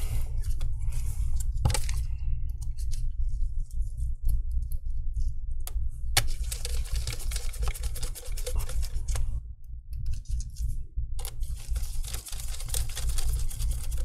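Gloved hands handling the metal SSD bracket inside an open laptop: scattered small clicks and knocks, with two longer stretches of rustling handling noise. A steady low hum runs underneath.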